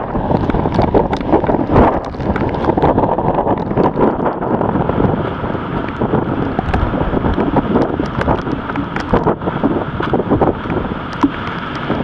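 Typhoon-force wind buffeting the microphone: a loud, continuous rushing and rumbling, broken by many irregular crackles and thumps as the gusts strike.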